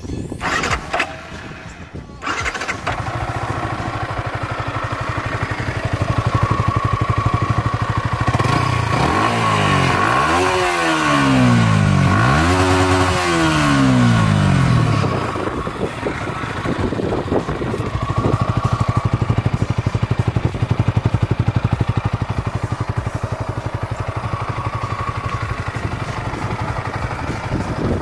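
Yamaha R15 V3's 155 cc single-cylinder engine through its stock exhaust, starting up about two seconds in and settling to a steady idle. It is revved twice, at about ten and thirteen seconds, each rev rising and falling back to idle.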